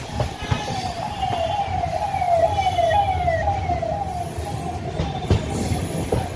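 A siren wailing, its pitch sliding down and jumping back up about twice a second and fading near the end, over the low rumble of the moving train.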